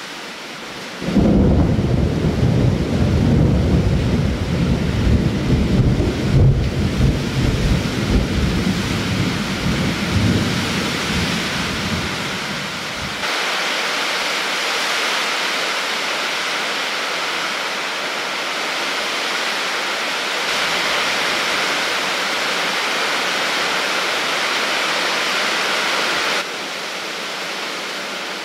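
Thunder rumbling loudly over rain, starting suddenly about a second in and lasting about twelve seconds. The rumble stops abruptly, leaving a steady hiss of rain, which drops in level near the end.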